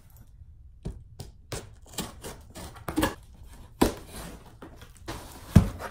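Knife cutting the packing tape on a cardboard shipping box: irregular slicing scrapes and knocks on the cardboard, the loudest knock near the end.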